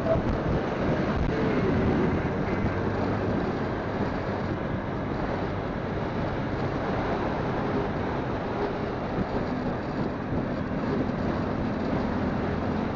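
Motorcycle riding at a steady road speed: a low engine hum under steady wind rush on the phone's microphone.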